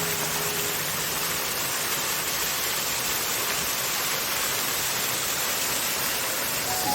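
Steady rush of water from a small waterfall on a mountain stream.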